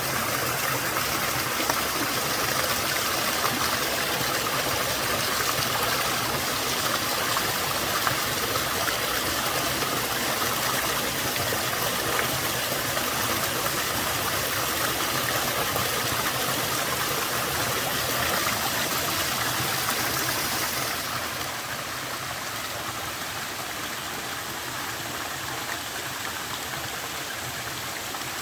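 Waterfall with a somewhat low flow of water, a steady rush of falling and splashing water. About three-quarters of the way in it becomes a little quieter and less hissy.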